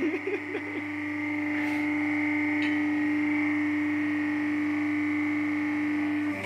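Hydraulic injection moulding machine running: a steady hum with a high, even whine, unchanging throughout.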